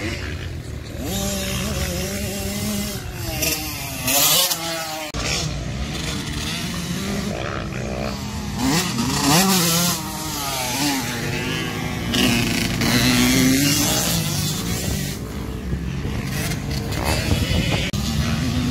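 Dirt bike engines revving up and down as the bikes ride round a motocross track, the pitch rising and falling again and again. It is loudest about four seconds in and again from about nine to fourteen seconds in.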